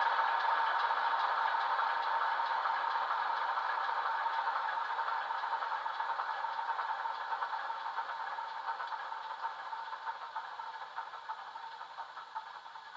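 DCC sound decoder in a Bachmann Class 46 model locomotive, playing a Class 46 diesel engine recording through a double iPhone speaker. The engine sound fades away steadily, its knocking rhythm standing out more as it dies down, as in the engine winding down at shut-down.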